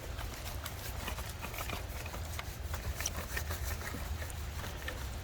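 Garden rake scraping and clicking through broken-up wet clay soil, a string of irregular short scratches.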